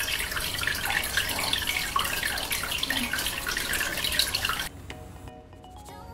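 A thin stream of water runs from a miniature kitchen faucet and splashes into a tiny sink. It stops abruptly about four and a half seconds in.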